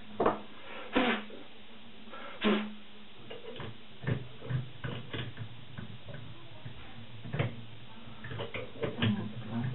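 Hand tools being handled at a workbench: a threading die and its steel die stock are picked up and fitted onto a rod held in a bench vise. A few sharp knocks come in the first couple of seconds, two of them with a brief metallic ring, then lighter clicks and taps of metal on metal.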